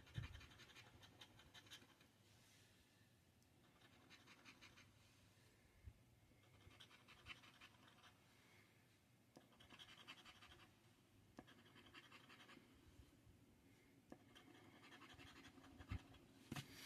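A scratch-off lottery ticket being scratched in about six short, faint bursts, each one to two seconds long with short pauses between them, as the coating is rubbed off one row of play spots.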